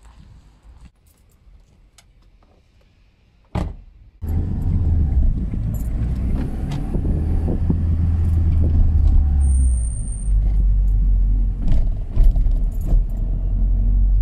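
Car interior noise while driving: a steady low engine and road rumble heard from inside a small car's cabin. It starts suddenly about four seconds in, after a quieter stretch of faint outdoor ambience.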